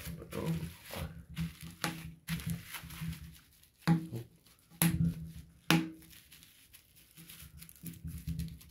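Bubble wrap being squeezed and popped by hand: crinkling plastic handling with three sharp pops about a second apart midway.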